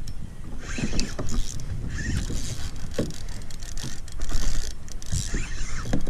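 Spinning reel being cranked to bring in a hooked fish, over a steady low rumble with scattered clicks and bursts of hiss.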